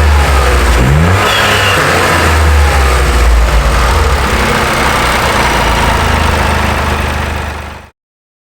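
Toyota GR Corolla's G16E-GTS 1.6-litre turbocharged three-cylinder breathing through an Eventuri carbon fibre intake, given a quick rev about a second in and then running loud and steady. The sound cuts off abruptly near the end.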